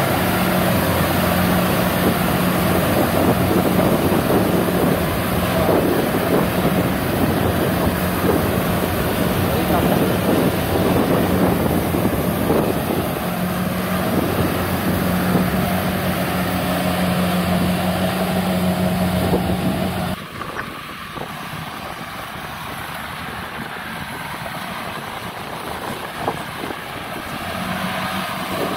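Kubota DC70 rice combine harvester's diesel engine running steadily under load, with the rattle and rush of its cutting and threshing works. About twenty seconds in it turns quieter and the engine's low hum fades for several seconds, then comes back near the end.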